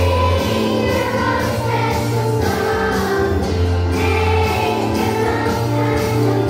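A choir of young children singing together along to a recorded backing track with bass notes and a steady beat.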